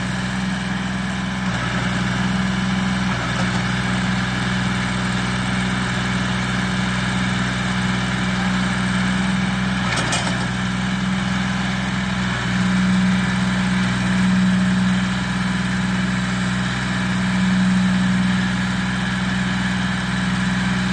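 John Deere tractor's diesel engine running under load while pulling a cane-laden trolley through a wet, muddy field, its steady hum swelling louder twice in the second half as it works harder. A single sharp knock about ten seconds in.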